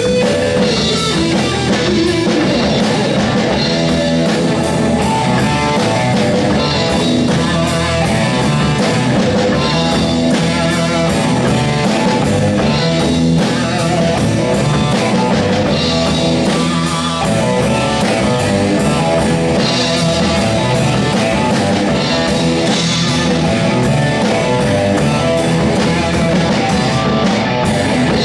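Electric guitar played through an amplifier in a blues-rock song, with drums keeping a steady beat; no singing.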